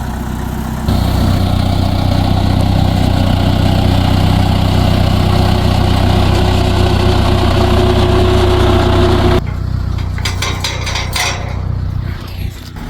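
A vehicle engine running steadily; it gets louder about a second in and drops back near the end. A run of clicks and knocks follows over the last few seconds.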